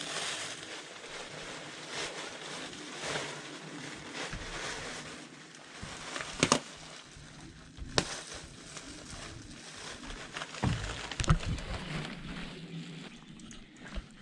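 A plastic bag rustling and crinkling as it is handled and stretched, with a few sharp clicks in the second half.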